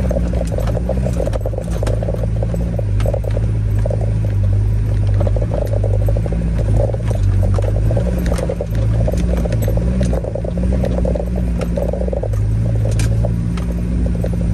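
Vehicle engine running under load as it climbs a rough dirt and rock track, with scattered sharp clicks and knocks from stones under the tyres.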